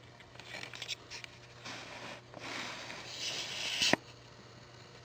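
Scratchy rustling on plush fabric as a small puppy paws and noses about in its soft dog bed, coming in irregular bursts. It ends in a sharp click about four seconds in.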